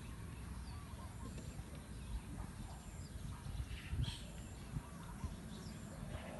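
Outdoor ambience: a steady low rumble with faint bird chirps now and then, and one brief knock about four seconds in.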